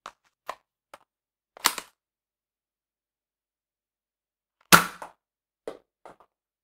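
Nerf toy blaster handled and fired at close range: a few faint clicks, a sharp snap about a second and a half in, and a louder shot near five seconds in, followed by small clicks.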